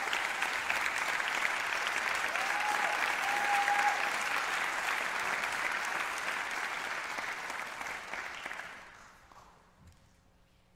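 Audience applauding, the clapping fading out about nine seconds in.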